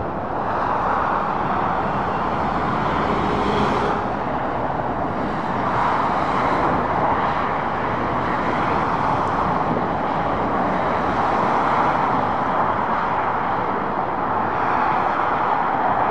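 Road traffic noise from lorries and cars driving past: a steady roar of tyres and engines that swells a little each time a vehicle goes by.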